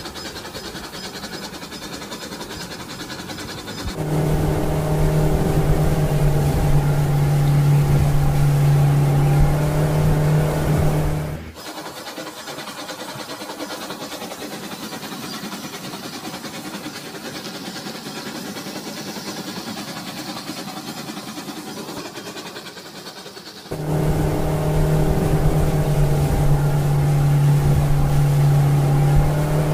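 A small battery-powered toy motor humming steadily. The hum starts about four seconds in, cuts off suddenly near the middle, and comes back near the end. In between is the even rush of a shallow stream.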